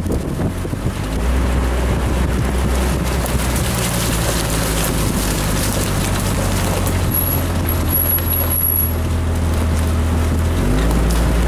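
Off-road vehicle's engine running steadily as it drives along a rough wooded trail. The low engine note steps up and gets louder about a second in, and changes again shortly before the end.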